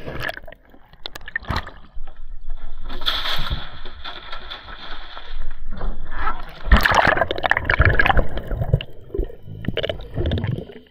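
Seawater sloshing, gurgling and splashing around a camera at the surface of a choppy sea, loudest and most jumbled about two thirds of the way through, with low thumps as waves hit the camera.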